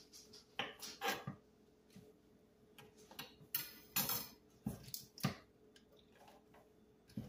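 Chef's knife knocking on a cutting board as Swiss chard stems are cut out of the leaves, then the knife set down and the stems dropped into a bowl: a quiet scatter of separate knocks and clinks.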